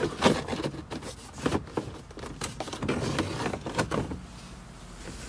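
Plastic instrument-panel bezel of a 1999 Toyota 4Runner being wiggled free of the dash: irregular clicks, knocks and scraping of plastic on plastic, quieter over the last second or so.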